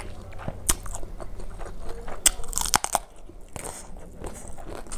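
Close-up eating sounds of a person eating rice and fish curry by hand: chewing, wet lip smacks and sharp crunches, busiest about two to three seconds in.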